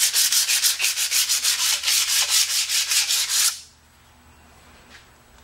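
Sandpaper rubbed quickly back and forth along a 3/8 inch solid steel rod, in rapid rasping strokes, several a second, scouring off weld spatter. The rubbing stops about three and a half seconds in.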